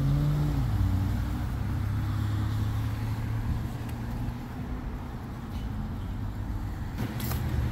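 Road traffic passing: a vehicle's engine hum that fades after about a second, over a steady low rumble, with one sharp click near the end.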